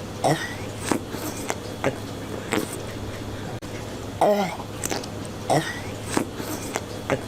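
Cartoon character Patrick Star coughing, a string of hacking coughs with a groaning 'aeugh' voice, one every half-second to second. The same run of coughs repeats about every five seconds as a loop, over a steady low hum.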